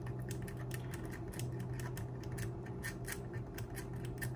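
Quick, short scraping strokes of a small hand tool taking a bit of copper off for a solder joint, heard as a run of irregular small clicks and scratches over a steady low hum.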